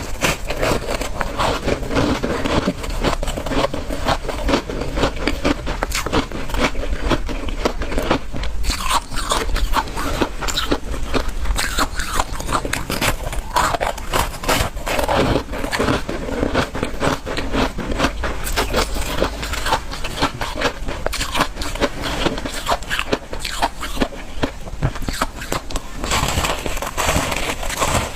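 Ice being bitten and chewed close to the microphone: a dense, unbroken run of sharp crunching and crackling.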